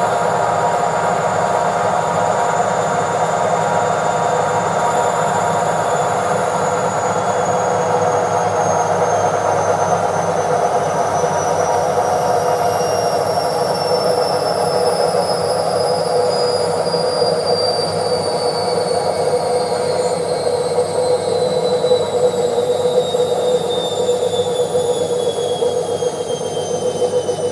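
Washing machine on its spin cycle: a steady mechanical hum and rush with a high whine that slowly falls in pitch throughout, as the drum's spin speed drops.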